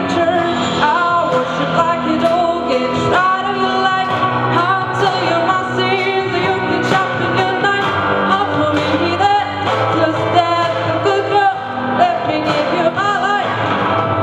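A song with a singing voice over a steady band accompaniment.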